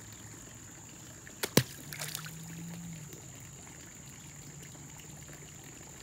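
A Nest thermostat tossed into shallow pond water: one sharp plop about a second and a half in, followed by brief splashing and trickling as it sinks.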